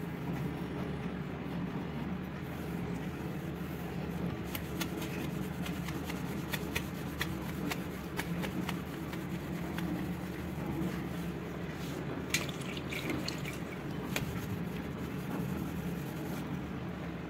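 A wet cloth soaked in paint thinner rubbing and scrubbing over glazed ceramic wall tiles to lift stuck glue residue, with scattered faint clicks. A steady low hum runs underneath.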